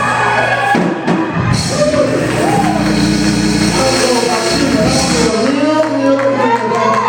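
Live gospel music from a church band, with a voice singing over steady bass notes and drums. A cymbal wash rings from about a second and a half in until about five seconds in.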